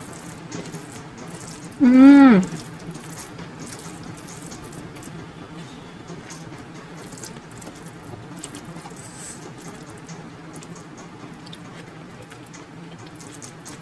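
Fingers squishing and mixing soft, ghee-soaked rice on a steel plate: a faint wet squelching with light clicks. About two seconds in comes one short vocal sound, pitched and rising then falling.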